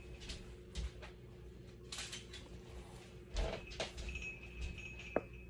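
Scattered knocks and clicks of kitchen utensils and storage being handled as a wooden spoon is fetched, over a faint steady hum, with a thin high tone for about a second near the end.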